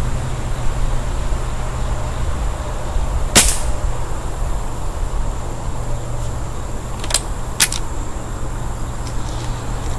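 A Beeman R7 break-barrel spring-piston air rifle fires once, a single sharp crack, about a third of the way in. About four seconds later come two quick sharp clicks half a second apart, over a steady low hum.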